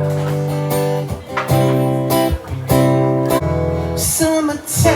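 Acoustic guitar strumming chords, with a new chord struck about every second.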